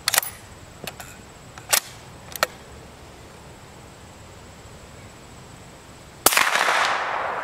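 A few sharp metallic clicks in the first two and a half seconds as the bolt of a CZ 557 bolt-action rifle is worked. Then, about six seconds in, a single suppressed shot of 240-grain subsonic .308 through a Q Full Nelson 30-caliber suppressor: a sudden report with no supersonic crack, trailing off over about a second.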